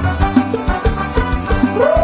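Live Thai luk thung band music playing a steady, quick drum beat under sustained instrument tones. Near the end a long note slides up and is held.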